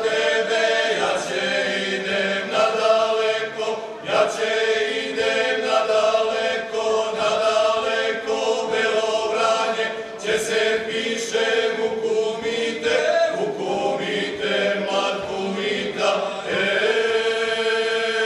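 Male folk vocal group singing a traditional Serbian song unaccompanied, the voices holding a steady low note beneath the moving melody.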